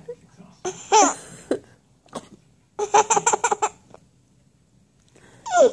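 A baby laughing: a few short giggles, then a run of quick laugh pulses about three seconds in, and a falling squeal near the end.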